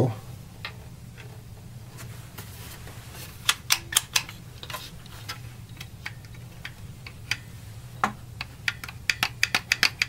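Scattered clicks and light knocks of hard plastic as a Sony PlayStation 1's top case shell is lifted off and turned over by hand. The clicks come in a quick cluster around the middle and a denser run near the end, over a steady low hum.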